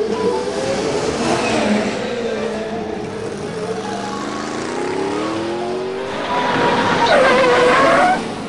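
Dubbed race-car engine sound effect revving, its pitch climbing through the middle and louder near the end.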